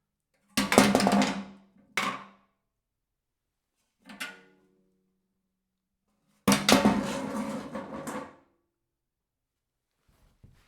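Empty metal drink cans thrown onto a heap, clattering and rattling against each other. There are four bursts: a long clatter about half a second in, a shorter one at about two seconds, a small ringing knock at about four seconds, and the loudest and longest clatter from about six and a half to eight and a half seconds. Faint ticks come near the end.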